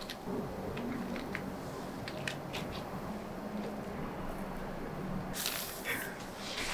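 Soft handling sounds of kimbap fillings being laid by hand onto lettuce on a seaweed sheet: light crinkles and rustles of lettuce, shredded fried tofu, cucumber and egg strips. Near the end comes a longer rustling scrape as the bamboo rolling mat is handled on the board.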